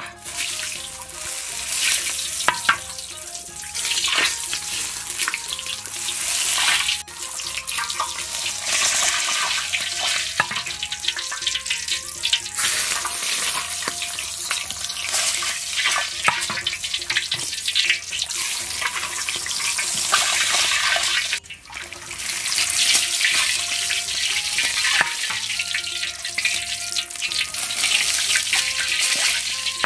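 Hot oil ladled over blanched cow hooves on a wire rack above a wok, sizzling and crackling steadily. The sizzle dies away briefly about two-thirds through, then picks up again.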